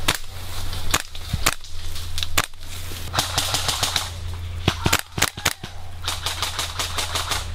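Airsoft guns firing: irregular single shots and short quick strings of sharp cracks, coming faster in the second half.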